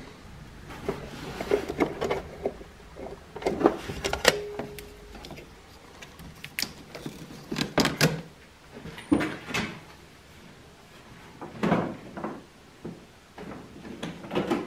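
Hands working the plastic body panels of a 2013 Arctic Cat F1100 snowmobile: irregular plastic clacks and knocks, with a brief squeak about four seconds in.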